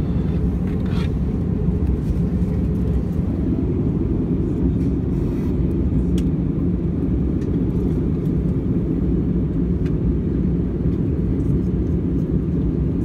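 Steady low cabin rumble of an Airbus A320-232 in flight, the mixed roar of airflow and its IAE V2500 turbofan engines heard from a window seat, as the airliner descends toward landing.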